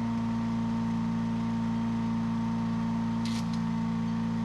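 Small gasoline engine of a wood chipper running at a steady speed.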